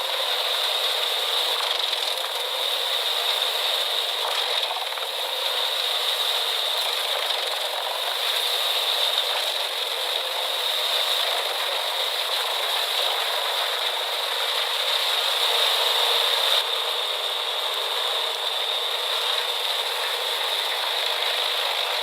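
Industrial drum wood chipper running steadily: a continuous mechanical rattle with a constant high whine over it, thin and without any low rumble. The sound shifts slightly about sixteen and a half seconds in.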